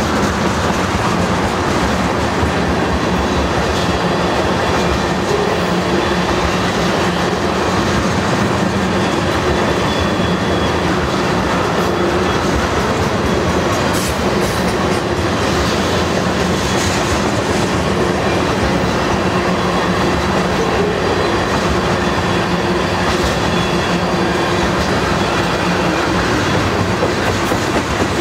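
Crude oil tank cars of a freight train rolling past on steel wheels and rail: a loud, steady running noise, with a few sharp clicks about halfway through.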